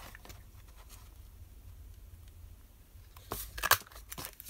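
Handheld paper punch cutting a notch into card stock: quiet handling, then a short cluster of sharp crunching clicks about three and a half seconds in as the punch bites through the card.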